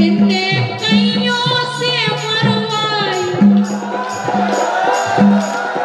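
Live Bundeli Rai folk music over a PA: a male singer sings over drums and jingling percussion that keep a steady beat of about two strokes a second. The voice is strongest in the first half.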